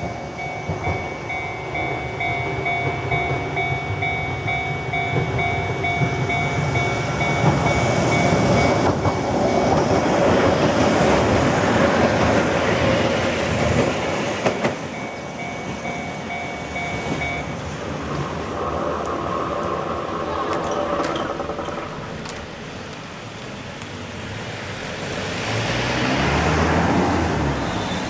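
Japanese level-crossing warning bells ringing steadily while a Keihan Ishiyama-Sakamoto Line train passes over the crossing, loudest about halfway through. The bells stop about two-thirds of the way in, and a road vehicle passes near the end.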